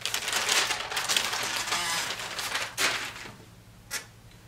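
Brown wrapping paper crinkling and rustling as it is pulled off a bundle of folded clothes. It stops about three seconds in, and a single soft tap follows near the end.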